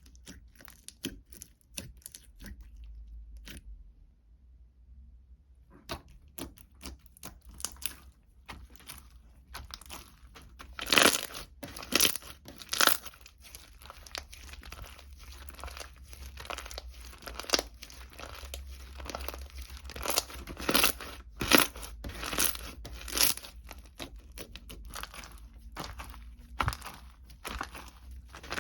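Irregular crinkling, tearing and crackling, like wrapping or paper being handled in a small room. After a short quiet spell a few seconds in, the crackles come thicker and louder.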